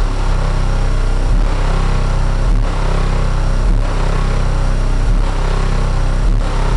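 Very loud deep bass from a car audio system of twelve Sundown Audio Nightshade 18-inch subwoofers in a Ford Explorer, heard from outside the vehicle. The bass is held steady, with a short break a little more than once a second.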